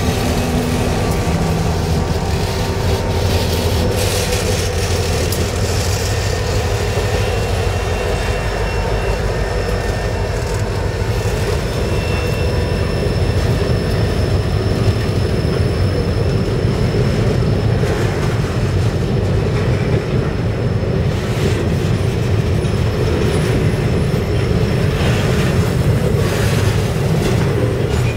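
CSX EMD diesel locomotives passing close with engines running, followed by a train of rail-carrying freight cars rolling by, steel wheels rumbling and clattering on the rails. The sound is loud and steady throughout.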